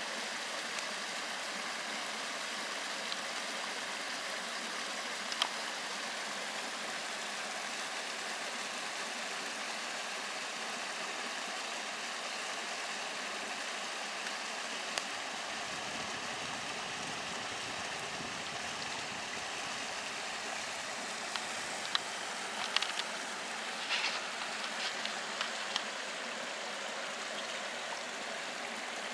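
Small forest stream babbling over a low cascade of stones, a steady rush of water; a few short clicks near the end.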